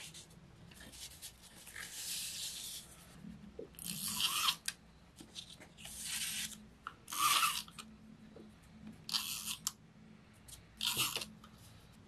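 Paper collage scraps being handled: lifted, peeled off a journal page and shuffled, giving about six short bursts of paper rustling.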